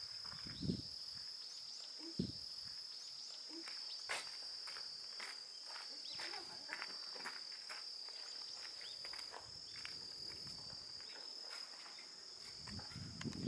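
Steady high-pitched chirring of insects, with scattered small ticks and a couple of soft thumps; a low rumble swells near the end.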